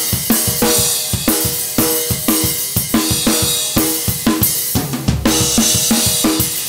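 Acoustic drum kit played alone in a steady rock beat: kick, snare and cymbals struck in an even rhythm. About five seconds in comes a heavier low drum hit with a cymbal crash before the beat carries on.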